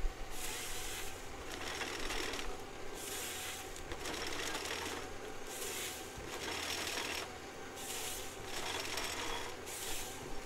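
Forestry machine running with a steady low hum and a thin whine, broken by short bursts of hiss every second or two.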